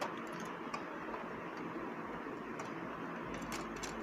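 Scattered light clicks and ticks as the engine controller circuit board is pushed into place in a Canon LBP 2900 laser printer's sheet-metal chassis, over a steady background hiss.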